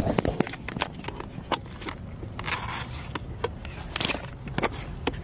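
Handling noise inside a parked car: scattered sharp clicks, knocks and rustles as the camera is moved about and fumbled with.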